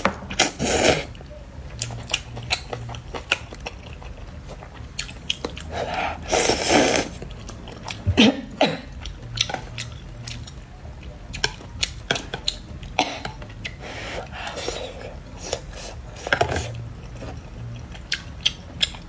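A person eating glass noodles with chopsticks: a few long, loud slurps of noodles (at the start, about six seconds in, and again near the end) between close-miked chewing and many small clicks of chopsticks against the bowl.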